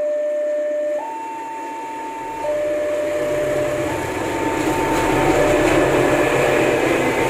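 Railway level-crossing warning alarm sounding an electronic two-tone, a low and a higher note taking turns about every second and a half. From about two and a half seconds in, the rumble of an approaching train comes in and grows louder.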